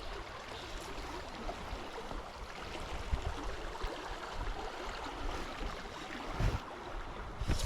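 Steady rush of flowing river water, with a couple of dull knocks near the end.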